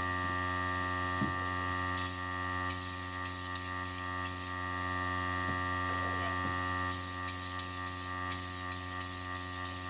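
Air-fed body deadener spray gun hissing in short repeated bursts as it sprays bed liner coating. Bursts come once about two seconds in, in a quick run of pulses shortly after, and again from about seven seconds in, over a steady hum of held tones.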